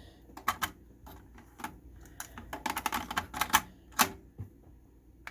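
A series of about a dozen irregular sharp clicks, as of buttons or switches being pressed, in a pause between stretches of music.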